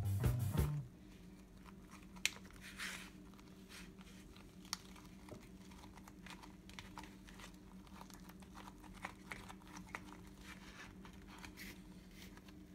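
Background music ends about a second in; after that, faint scattered crinkles and small taps come from hands rolling a wet rice-paper spring roll on a paper plate. A steady low hum runs underneath.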